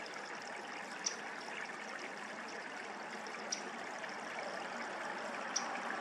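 Steady rush of flowing water, like a creek running past or over a concrete structure, with three short, high chirps standing out above it, about a second, three and a half seconds and five and a half seconds in.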